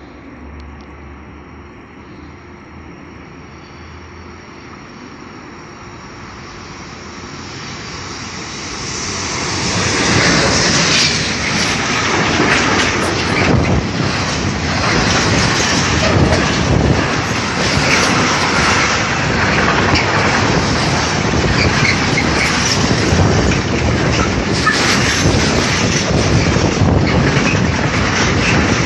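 Freight train of container wagons hauled by a Siemens Vectron locomotive, approaching and passing close by. It is faint at first and swells over several seconds, then from about a third of the way in comes a loud steady rush of passing wagons with their wheels clattering over the rails.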